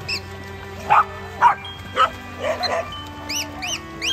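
Dogs barking, about four barks roughly half a second apart, then two short high yips, over background music.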